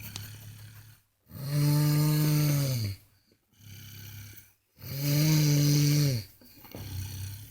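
A sleeping boy snoring: two long, loud, buzzing snores about three seconds apart, each dropping in pitch as it ends, with a quieter breathy exhale between them.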